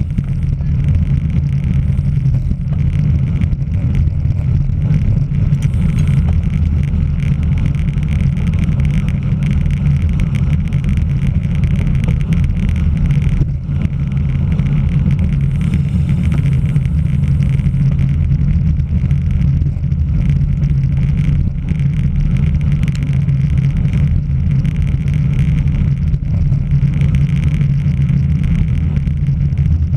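Steady low rumble of wind buffeting and road vibration on a camera mounted on a racing bicycle ridden at speed.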